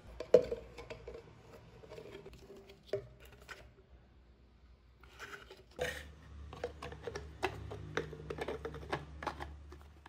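Hands handling plastic parts: scattered clicks, taps and scrapes as a clear plastic jar, a foam ring and a PVC end cap are fitted together, with a sharp knock near the start.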